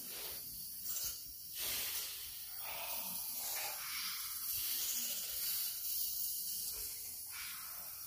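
Jet nebulizer hissing steadily as mist flows through a child's face mask, with the child breathing through it during an inhalation treatment for a blocked nose and cough.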